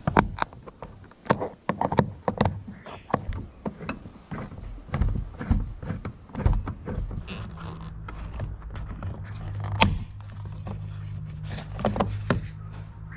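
Irregular clicks, knocks and scrapes of a screwdriver on the plastic door trim of a 2015 Holden Colorado as the trim is undone and worked loose, with one sharp click just under ten seconds in. A steady low hum comes in about halfway through.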